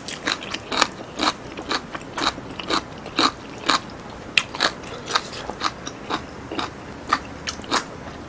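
Close-miked chewing of a mouthful of abalone curry: a string of sharp, wet mouth clicks and smacks, irregular at about two a second.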